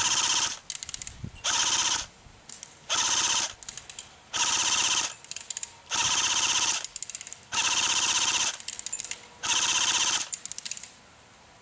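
Cyma AK-47 electric airsoft rifle firing on full auto in seven short bursts, each a rapid buzzing rattle of the gearbox cycling under a second long, with short pauses between.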